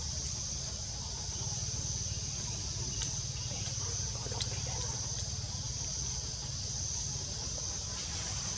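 Steady high-pitched drone of insects over a low rumble, with a couple of faint clicks.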